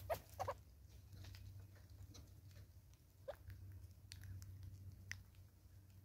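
Southern red-billed hornbills pecking seed off a wooden tree stump: irregular sharp taps of their bills on the wood. A quick cluster of taps comes in the first half second, then single taps about once a second.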